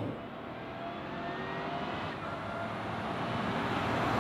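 GMC Yukon Denali's 6.2-litre V8 accelerating hard far off and coming closer, its engine note rising slowly in pitch and growing steadily louder.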